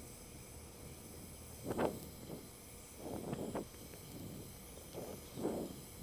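Brazing torch flame hissing steadily as bronze rod is melted onto red-hot cast iron, with a few short, soft puffs about every second or two.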